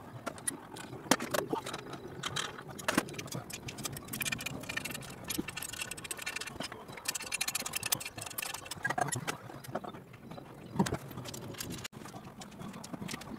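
Hand tools at work on an MGB engine's manifold and cylinder-head fittings: irregular metallic clicks, ratcheting and clatter, with a few sharper knocks.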